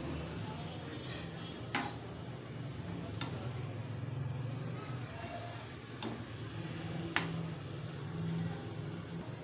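A steel spoon turning chicken pieces in a thin sauce in an aluminium pan, clinking sharply against the pan about four times over a steady low hum.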